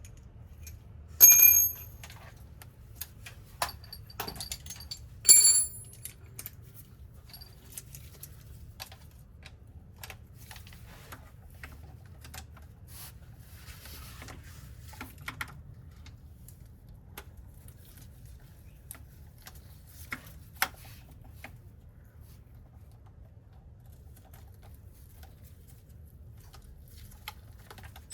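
Metal hand tools clinking and clicking while bolts are undone: two sharp, ringing metal clinks about one second and five seconds in, with scattered small taps and clicks throughout over a low steady hum.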